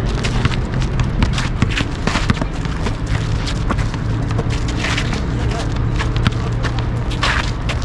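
A basketball bouncing on asphalt and players' sneakers scuffing and stepping, heard as sharp, irregular knocks over a steady low rumble.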